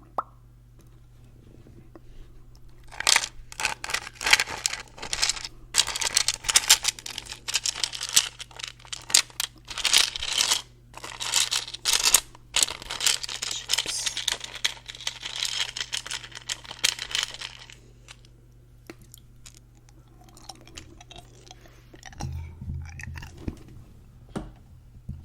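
Ice being crunched and chewed: dense crackly crunching starts about three seconds in and runs for about fifteen seconds, then dies down to faint crackles. A low rumble comes near the end.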